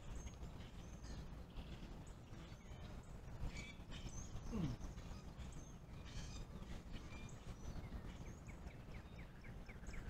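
Faint, steady low hum of distant road traffic, with scattered bird chirps over it. About halfway through, a short low sound slides down in pitch, and near the end a bird gives a quick run of short chirps, about five a second.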